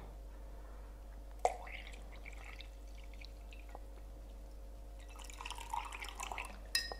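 Water faintly trickling and dripping from an unscrewed wash bottle into a glass vessel, with a sharp clink of glass about a second and a half in and another near the end.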